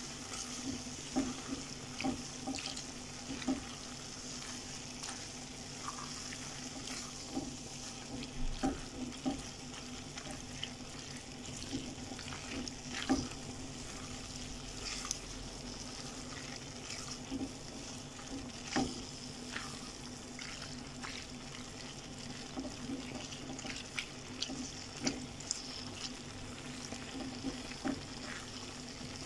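Creamy pasta sauce simmering in a pan with a steady, faint sizzle, while a silicone spatula stirs and tosses the fettuccine, making scattered soft scrapes and taps against the pan.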